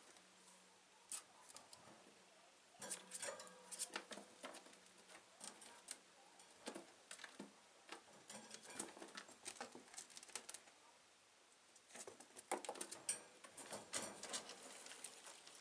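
Faint, irregular patter and scratching of a ferret's claws scurrying over a plastic cage floor, in scattered clusters with short quiet gaps between.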